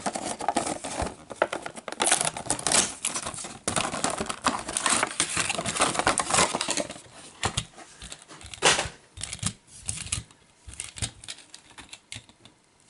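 Plastic blister packaging and cardboard card crinkling and crackling as a 1/64 diecast monster truck is pried out by hand, with sharp clicks. The handling is busiest in the first half and thins out to a few scattered clicks toward the end.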